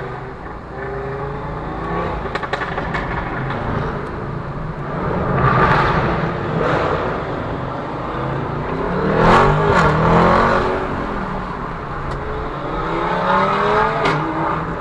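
Performance cars accelerating away one after another, engines revving with rising pitch; the two loudest pulls come about six and ten seconds in.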